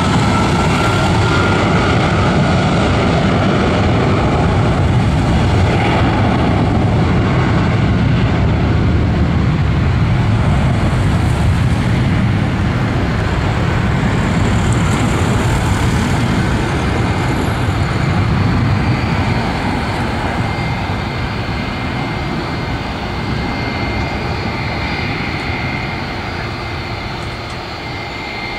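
Twin jet engines of a Boeing 757-200 at takeoff power: a steady, loud low rumble with a faint whine over it, fading gradually over the last third as the airliner climbs away.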